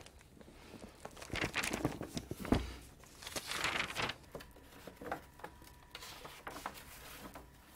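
Pages of a large old printed book being turned and handled: paper rustling in a few sweeps, with a dull thump about two and a half seconds in and small taps near the end.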